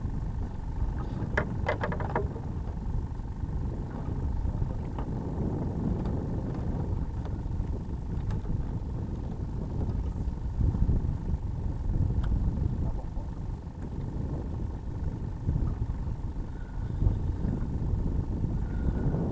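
Wind buffeting the microphone, a steady low rumble, with a faint steady hum and a few light clicks about a second and a half in.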